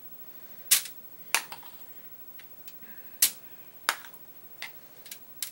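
A spoon knocking and scraping against a glass bowl, about seven sharp knocks at uneven intervals, as thick, already-setting fudge is worked out of the bowl into the pan.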